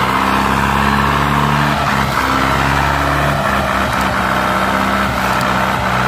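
Hindustan 50 hp tractor's diesel engine running steadily and loud under heavy load as it pulls a fully loaded sugarcane trolley.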